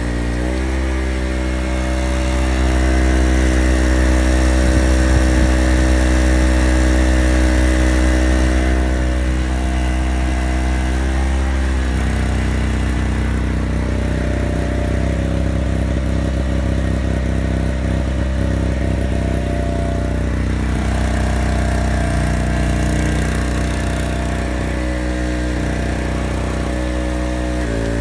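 Harbor Freight Storm Cat 900-watt 63cc two-stroke generator engine running steadily under an electrical load of fans and a halogen lamp. Its engine note shifts several times as the loads are switched off and on, bending in pitch and settling again quickly.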